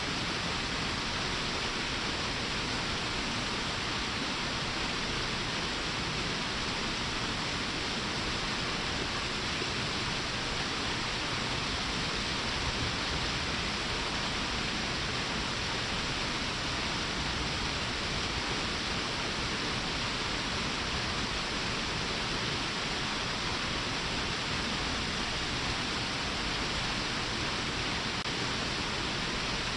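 Waterfall: falling water rushing steadily, an even hiss with no breaks or changes.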